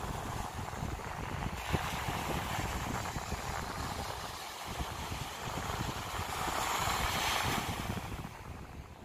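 Small sea waves breaking and washing up a sandy beach, with wind rumbling on the microphone. One wash swells up about seven seconds in, then fades.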